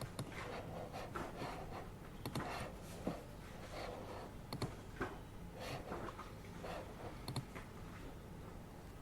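Pen writing on paper: irregular scratchy strokes with a few sharp clicks, over the steady low hum of an air purifier.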